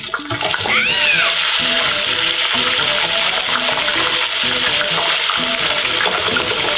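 A loud, steady rushing hiss like running water starts just after the beginning and runs on evenly. Background music with short repeated notes plays underneath, with a brief rising-and-falling tonal glide about a second in.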